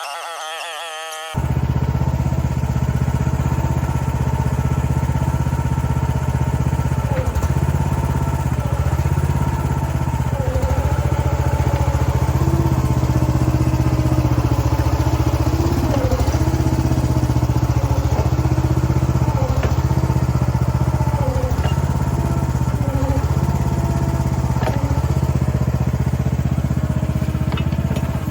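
Gasoline engine of a mini excavator running steadily under load, with a higher whine that dips and recovers again and again as the hydraulics are worked. It comes in abruptly about a second in.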